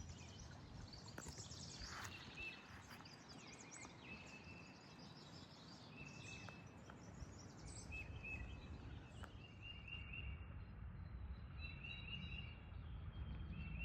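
Faint woodland ambience: a songbird singing short, high trilled phrases every couple of seconds over a low, steady rumble.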